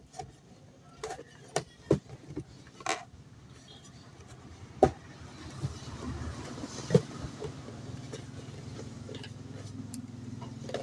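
Scattered handling knocks and clicks while a boxed wok is being unpacked, then a motor vehicle's engine hum that rises from about halfway and keeps going.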